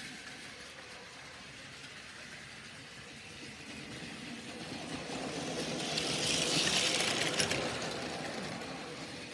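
Battery-powered Plarail toy bullet train running on plastic track, its motor whirring and wheels rattling. It grows louder as the train approaches, is loudest with a few clicks about two-thirds of the way in, and then fades as it passes.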